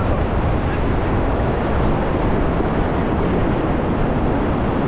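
Steady rush of river whitewater from the rapids around an inflatable raft, a constant noise with a heavy low rumble.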